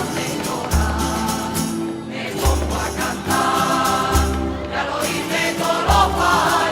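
Background music: a choir singing, over a deep drum beat that lands about every 1.7 seconds.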